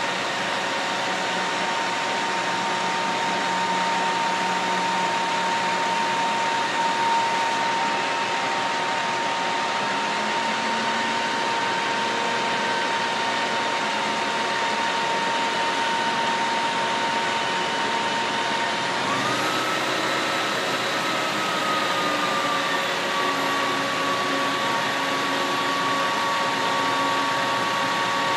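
Steady drone of idling utility-truck diesel engines, with a steady whine; about two-thirds of the way through a second tone rises, then settles a little lower and holds.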